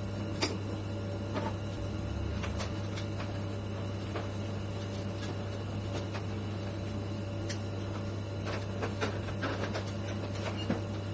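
Steady mechanical hum with a low drone and a faint steady tone, with scattered light clicks and taps, more of them near the end.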